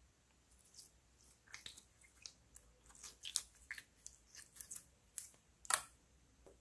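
Clear slime squeezed and stretched between fingers, giving a string of small sticky pops and crackles, with a louder pop near the end.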